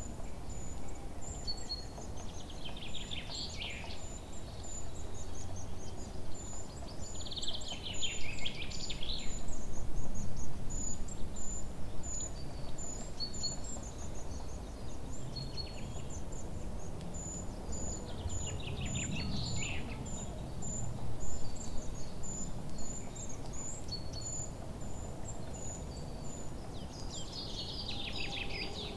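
Forest birds singing: a trilled song that falls in pitch, repeated several times a few seconds apart, over a steady series of thin, very high chirps. A low rumbling noise runs underneath, loudest about ten seconds in.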